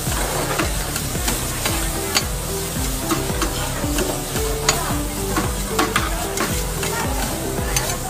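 Noodles and vegetables sizzling on a flat steel teppanyaki griddle, with two metal spatulas scraping and clacking against the hot plate in quick, irregular strokes as the noodles are tossed.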